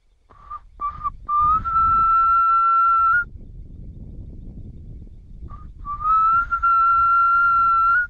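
A whistle made from a gourd, blown in two phrases. Each phrase opens with short toots and then holds one long steady note, sliding slightly up in pitch as it settles.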